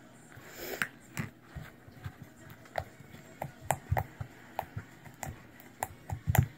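Fluffy glue-and-shaving-cream slime being kneaded and stretched by hand, giving irregular small wet clicks and pops, a few a second.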